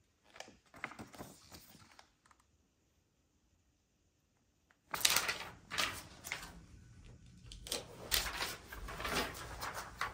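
Hands handling thin plastic protective sheets and wall-mount parts in a cardboard box: rustling with light clicks and taps. A brief spell of it about half a second in, a quiet gap, then busier handling with sharp clicks from about five seconds in.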